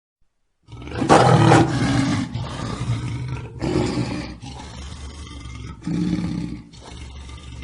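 Lion roaring: after a brief silence, a loud drawn-out roar starts about a second in, followed by shorter, quieter roars roughly every two seconds.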